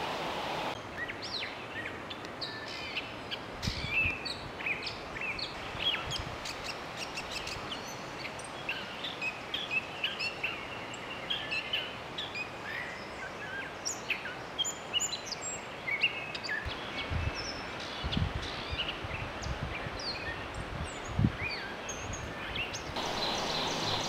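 Gray catbird singing: a long, rambling run of varied short squeaky and whistled notes with scarcely a pause. A few low thumps come through now and then.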